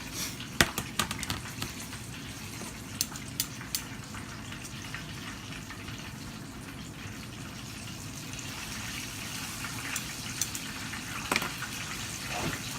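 Chicken frying in hot oil in a pan, a steady sizzle, with a few sharp clicks and knocks of kitchen handling near the start, about three seconds in, and near the end.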